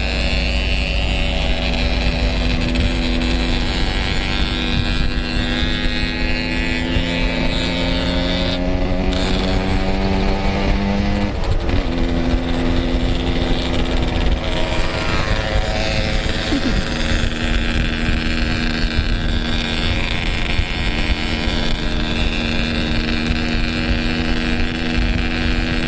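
Yamaha RX King's single-cylinder two-stroke engine running under way, its pitch climbing slowly for about eleven seconds, then dropping sharply at a gear change before steadying and rising again. A low wind rumble sits on the microphone throughout.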